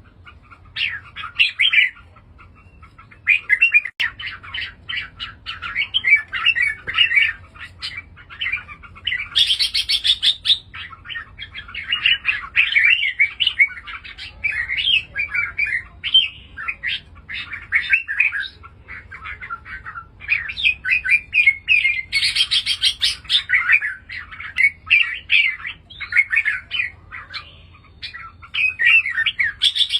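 Red-whiskered bulbuls singing: a near-continuous run of short, chirpy whistled phrases, broken by brief harsher, higher bursts about nine seconds in, again past the twenty-second mark, and at the very end.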